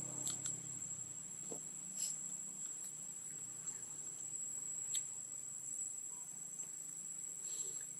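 Insects chirring steadily in one high-pitched tone, with a few faint sharp clicks, one about two seconds in and another about five seconds in.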